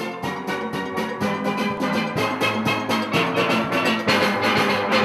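A steel orchestra playing a fast, rhythmic calypso at full ensemble, many steel pans struck over a drum rhythm section, growing louder about four seconds in.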